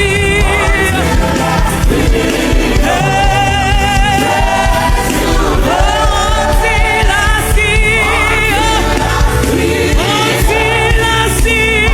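Gospel worship music: singers holding long, wavering sung notes over a live band with steady bass.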